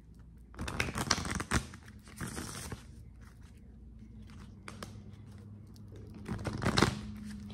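A deck of tarot cards being handled and shuffled in the hands, the cards rustling and rubbing in two spells of bursts, the first about half a second in and the second just before the end, over a low steady hum.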